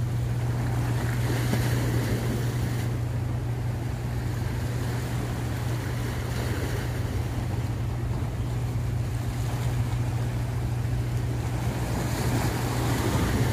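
Wind buffeting the microphone over the sound of choppy sea waves, with a steady low hum underneath.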